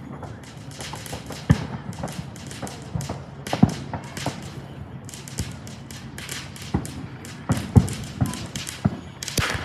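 Fireworks going off: a run of irregular crackles and pops with several heavier low booms, the strongest about a second and a half, three and a half and near eight seconds in, and a dense burst of crackling near the end.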